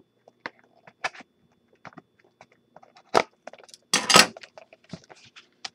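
A sealed trading-card box and its wrapping being handled and opened. Scattered light clicks and taps build to a sharp scrape about three seconds in, then a longer rustling tear around four seconds.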